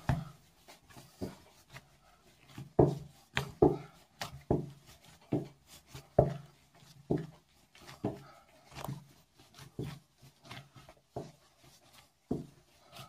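Hands kneading a soft flour-and-milk dough on a floured countertop: a run of dull thumps, one or two a second, as the dough is pushed and pressed against the counter, beginning a couple of seconds in, with soft rubbing between.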